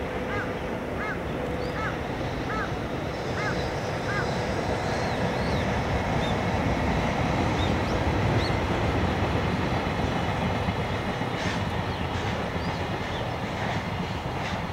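Freight train of tank cars behind an EH200 electric locomotive rumbling across a long railway bridge, a steady low rumble that swells in the middle and eases off near the end. A bird calls about seven times in quick succession in the first few seconds, with a few higher chirps after.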